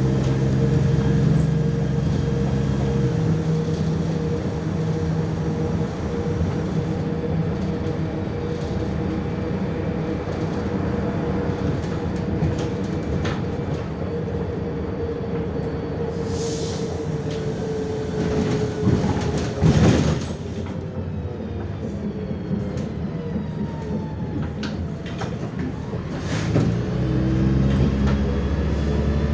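Cabin noise inside a moving MAZ-105 articulated diesel city bus: engine drone and road rumble under a steady whine, with rattles and knocks from the body. The deep engine note drops after about three seconds and comes back strongly near the end, and there is a loud knock about twenty seconds in.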